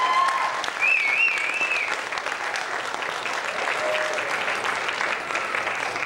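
Audience applauding and cheering, with a high wavering call from the crowd about a second in; the clapping slowly dies down near the end.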